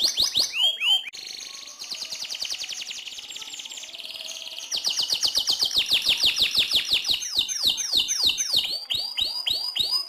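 Domestic canary singing long rolling trills: rapid runs of the same short note repeated many times, quieter in the first few seconds and louder from about five seconds in, slowing to separate swooping notes near the end.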